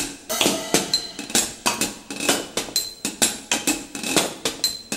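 Washboard rhythm in a band's instrumental break: sharp metallic clacks and clinks, about four a second, with faint ringing tones between the strikes.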